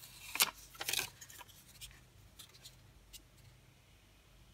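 Paper sticky notes being peeled off and handled over a card, rustling: two louder rustles in the first second or so, then a few faint light ticks.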